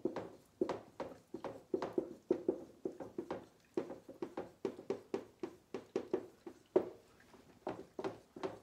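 Writing strokes tapping and knocking on a writing surface, quick and irregular at two to four taps a second, with a short pause near the end.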